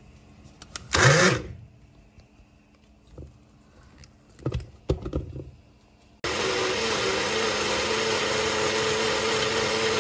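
Personal cup blender puréeing fresh tomatoes into paste. A short loud burst comes about a second in and a few knocks follow; then the motor starts about six seconds in and runs steadily with a constant whine.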